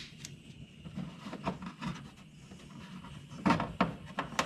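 Hand-held butane pencil torch burning with a steady hiss while heating heat-shrink tubing on a wire, with a few short handling knocks about three and a half seconds in.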